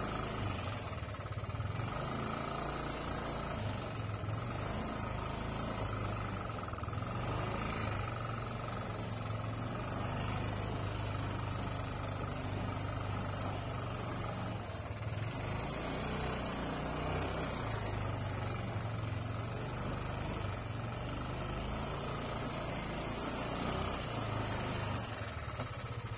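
Steady hum of a vehicle engine running, with a faint high tone over it.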